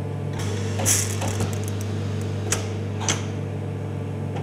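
A steady low hum with a brief rattle about half a second in, then two sharp mechanical clicks about half a second apart.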